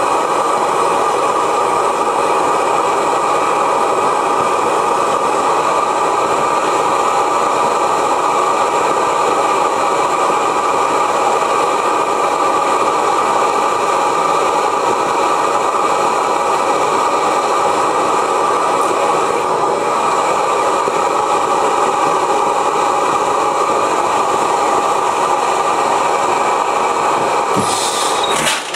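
Propane burner heating the hot tube of a 1905 Reid hot-tube two-cycle oilfield engine, running with a steady roar, before the engine is started. A few sharp knocks come near the end.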